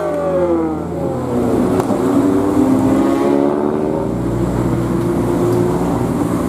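Bus engine revving, its pitch falling away over the first second or so, then running on steadily with a low drone.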